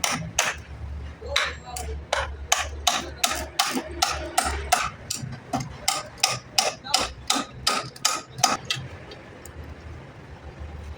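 A hammer striking wood in a quick, steady series of blows, about three a second, stopping about two seconds before the end, over a faint low hum.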